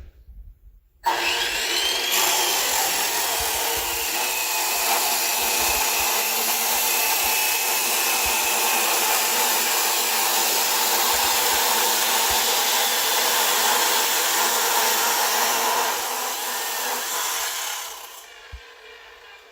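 Electric miter saw switched on about a second in, its motor whining up to speed, then running loud and steady through a cut in the workpiece before it is let go and winds down near the end.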